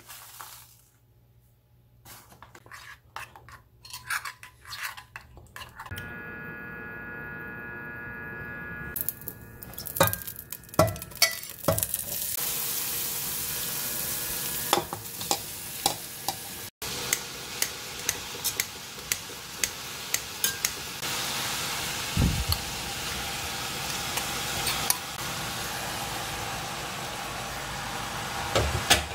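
A metal spoon stirring and clinking in a ceramic bowl of seasoning sauce, then green onions and chicken sizzling as they stir-fry in a stainless steel pot, with a steady hiss and frequent scrapes and clinks of the utensil against the pot.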